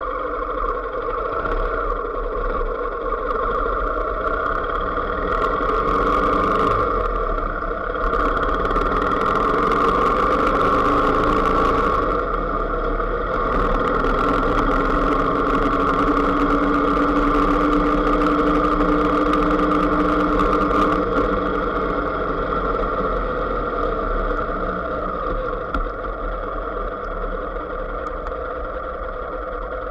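Vehicle engine running while driving along a road, with road and wind noise. The engine note rises in pitch about a quarter of the way in and holds steady, then eases off and gets a little quieter after about two thirds of the way.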